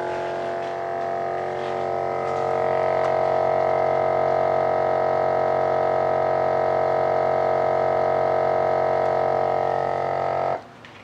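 Nesco VS12 vacuum sealer's pump running with a steady hum as it draws the air out of a bag, a little louder from about two seconds in, then cutting off suddenly near the end.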